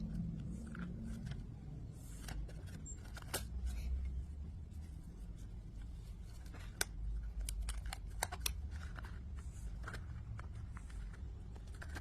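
Scattered sharp clicks and snips at irregular intervals over a low steady rumble.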